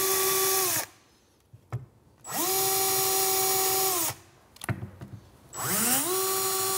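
DeWalt cordless drill drilling the top-runner pilot holes through a paper template into the chipboard cabinet side, one hole after another. The motor spins up to a steady whine and winds down each time: it stops about a second in, runs again from about two to four seconds, and starts once more near six seconds.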